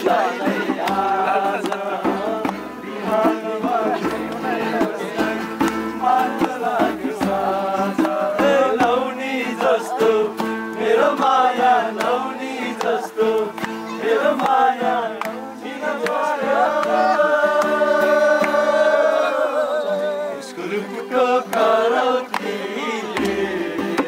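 A group of people singing together to an acoustic guitar, with one long held note about two-thirds of the way through.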